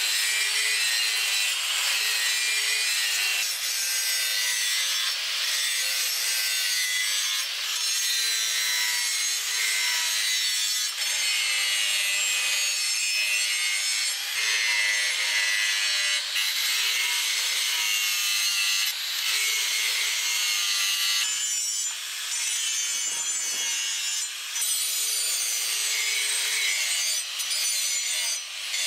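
Angle grinder with an abrasive disc grinding the leaf-spring steel of a cleaver blade: a steady motor whine under a loud hiss of grinding, the pitch sagging briefly near the end as the disc is pressed harder.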